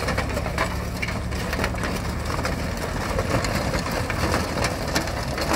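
An engine idling steadily, with scattered crackling and clicking noises over it.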